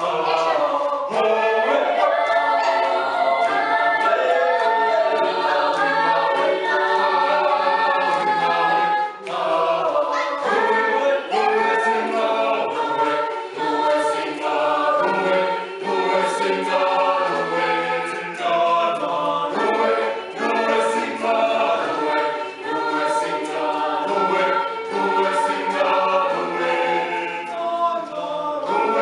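Background music: a choir singing, several voices holding chords together.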